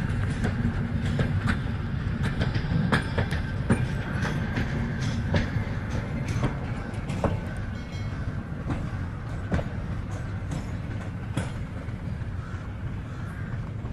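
Passenger train coaches rolling past, their wheels clicking irregularly over the rail joints over a steady low rumble. The sound eases toward the end as the last coach draws away.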